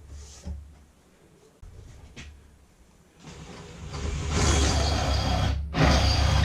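Electric drill starting up and boring through wood, running steadily from about three seconds in, with a brief stop near the end.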